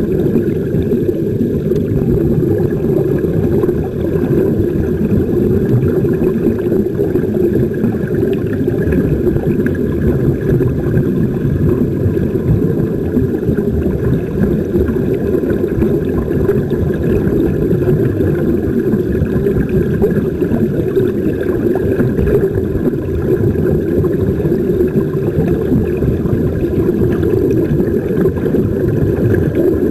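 Steady, muffled underwater rushing and bubbling: water and the air streaming out of surface-supplied sea-walk diving helmets, picked up by a camera in an underwater housing.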